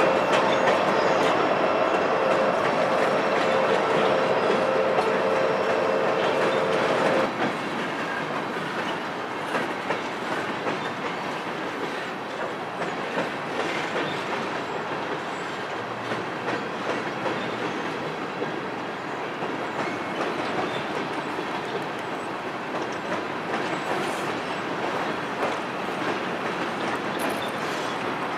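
Freight train of empty coal hopper cars rolling past, with diesel locomotives running with a steady hum over the wheel noise. About seven seconds in, the engine hum stops abruptly, and then only the hoppers' wheels clatter over the rail joints (clickety-clack).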